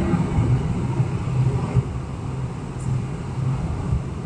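Steady cabin noise inside a Boeing 747-400 in flight: a low rumble of engines and airflow, with a low hum that swells and fades.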